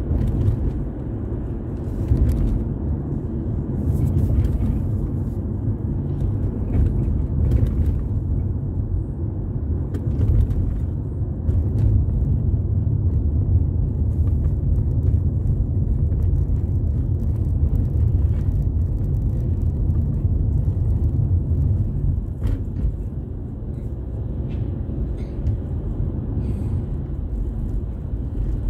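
Steady low rumble of a car driving, heard from inside the cabin: road and engine noise, with a few faint clicks.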